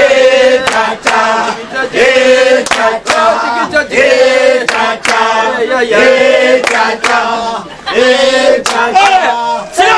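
A group of male and female voices singing a chant together in rhythmic repeated phrases of held notes, with sharp percussive hits between phrases.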